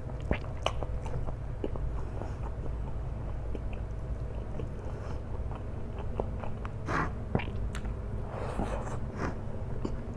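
Close-up eating sounds: a person chewing and biting through flat rice noodles, with many short wet mouth clicks and a longer noisy sound about seven seconds in and again near nine seconds.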